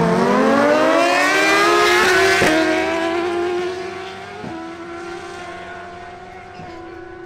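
Two Suzuki GSX-R1000 inline-four drag bikes accelerating hard off the line, the engine note climbing and breaking at quick gear shifts, then fading as they pull away down the strip.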